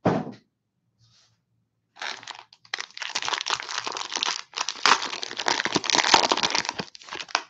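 A short thump, then about two seconds in the plastic cellophane wrapper of a Donruss basketball cello pack being torn open and crinkled by hand, a dense crackling that runs until just before the end.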